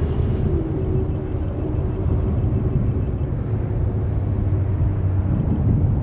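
Steady low outdoor rumble with a faint steady hum above it.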